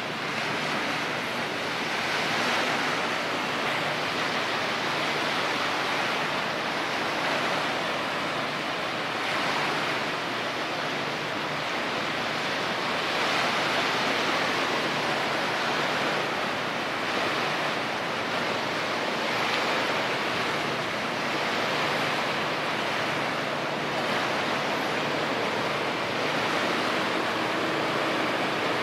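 Steady outdoor rushing of wind and water, swelling and easing every few seconds.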